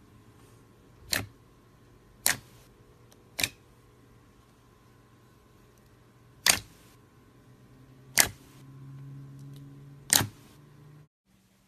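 Six sharp, separate clicks spaced one to three seconds apart, over a faint steady hum; the sound cuts out abruptly near the end.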